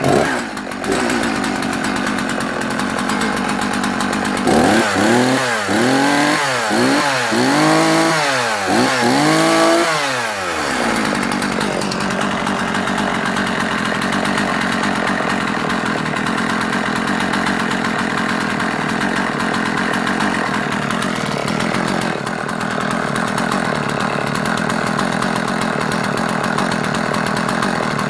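Husqvarna 50 two-stroke chainsaw, 49 cc, running just after a cold start with the choke taken off. It runs steadily for a few seconds, is revved up and back down several times, then settles to a steady idle.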